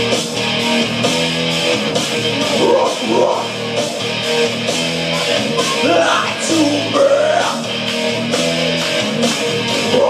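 Rock music in an instrumental break between sung lines: guitar chords over a steady beat, with a lead line bending up and down in pitch near the middle.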